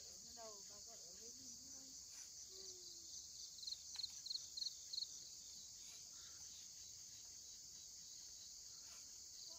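Faint, steady chorus of crickets or similar insects shrilling, with a short run of louder chirps about four seconds in.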